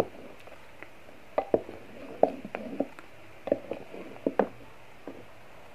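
Wooden spoon knocking and scraping against the inside of a clay cooking pot while stirring thick milk: a scattering of short, soft knocks at irregular intervals.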